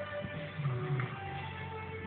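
Instrumental music with a guitar playing: held notes with a few plucked attacks.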